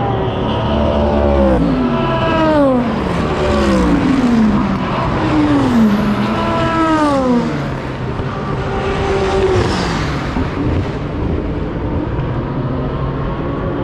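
Several IMSA race cars pass at full speed one after another, a mix of GT cars and prototypes. Each car's engine note falls steeply in pitch as it goes by, with a new car arriving every second or two.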